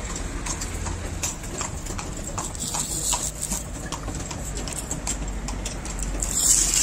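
A run of irregular sharp clicks and taps, a few each second, with a short hiss near the end.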